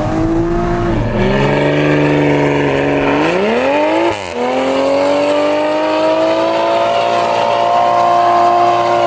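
2020 Toyota Supra's turbocharged engine revving hard during a burnout, rear tyres spinning. The pitch dips, climbs sharply about three seconds in, drops for a moment near four seconds, then holds high and steady.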